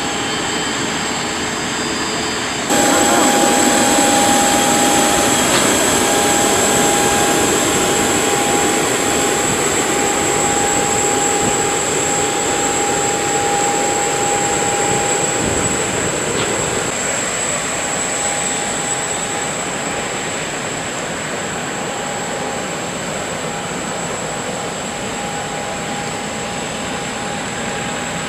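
Steady turbine whine of a parked jet airliner over a rushing noise, two fixed tones, one middling and one high; it jumps louder about three seconds in and eases off slightly later.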